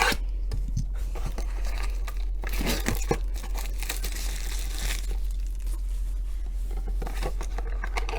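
Trading-card packaging being torn open and crinkled by hand: a blaster box's wrapper and foil card pack, with scattered crackles and a longer tearing stretch about four seconds in.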